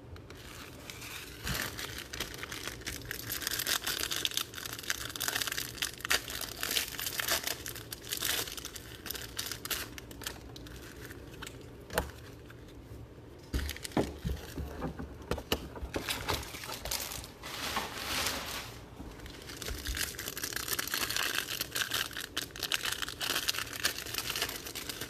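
Plastic wrapping crinkling and tearing as it is handled and opened. It comes in stretches with a quieter gap near the middle and a sharp click about twelve seconds in.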